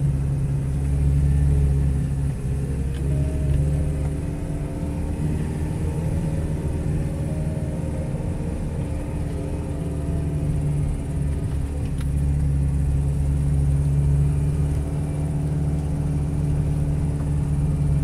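Toyota Hilux engine heard from inside the cab, pulling steadily through soft beach sand at about 2,000 rpm with little strain. The engine note wavers slightly and swells a little twice as the load changes.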